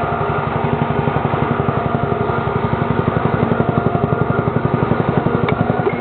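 An engine running at a steady speed with a fast, even low pulsing, cutting off near the end.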